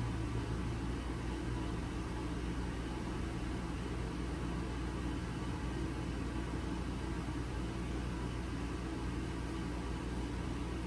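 Steady low hum with an even hiss, like a running fan or air conditioner in a small room; no clicks or other sudden sounds.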